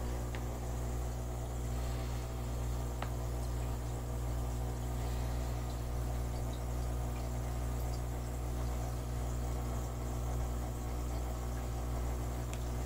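Steady low hum of running aquarium equipment, with an even hiss above it and a few faint ticks.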